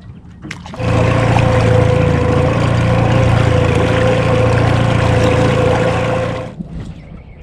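Outboard boat motor running steadily at a loud, even pitch, starting abruptly about a second in and cutting off abruptly near the end.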